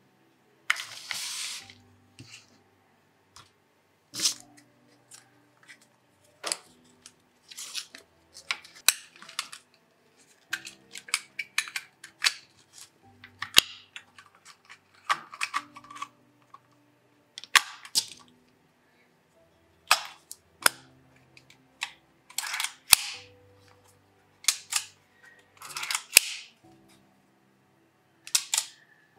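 Voigtländer Vito CL 35 mm film camera being handled: a string of sharp clicks, snaps and short scraping rasps as its back is opened and the body is turned and set down. Soft background music plays underneath.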